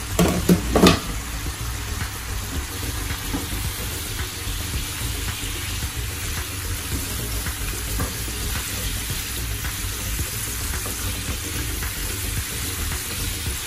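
Pork belly pieces sizzling in fat and soy sauce in a pot, stirred and turned with a spatula. A few sharp knocks come in the first second.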